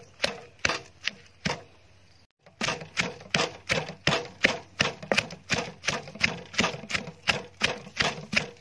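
Wooden pestle pounding roasted chilies, shallots and garlic in a clay mortar, steady strikes about three a second with a short pause about two seconds in.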